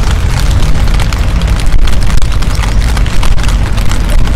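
Wind buffeting the microphone as a loud, steady low rumble, with rain spattering as many small taps on top.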